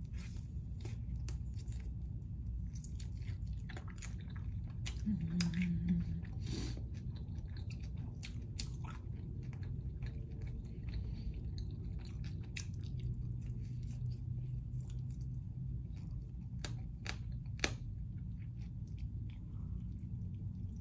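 A person biting into and chewing a chicken wing: irregular mouth clicks and chewing sounds over a steady low hum, with a brief low tone about five seconds in.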